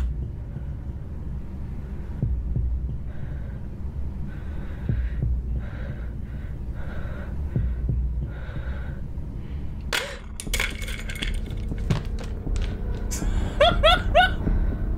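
Horror-film soundtrack: a low, steady rumbling drone with soft low thuds. A sharp hit comes about ten seconds in, followed by clicks and a few short rising sounds near the end.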